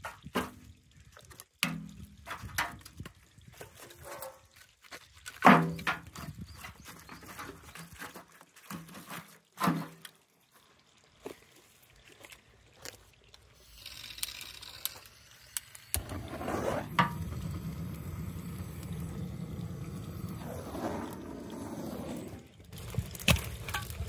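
Split oak logs knocking and clattering as they are stacked by hand onto cedar kindling in a rusty steel drum fire pit, with several sharp wooden knocks in the first half. Later comes a steady rushing noise for about six seconds that cuts off abruptly, as the kindling is being lit.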